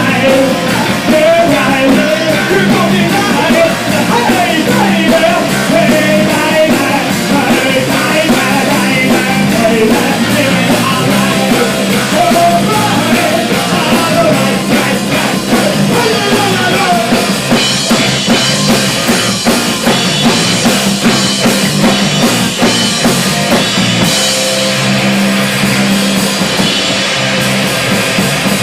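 A rock band playing a song, with a sung melody over a drum kit and a steady driving beat.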